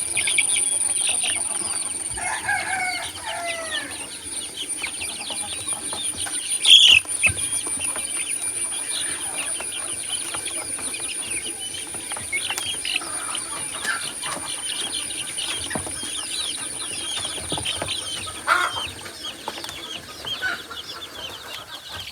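A group of baby chicks cheeping continuously, with many short high-pitched peeps overlapping and one louder peep about seven seconds in. A lower, falling call comes a couple of seconds in, and a steady high-pitched tone runs in the background until it fades out near the end.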